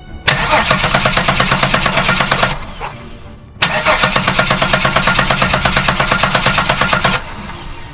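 Holden VX Commodore's 3.8-litre V6 cranking on the starter twice, a shorter then a longer crank, without catching: the engine cranks but won't start, with fuel still not getting through after the pump change.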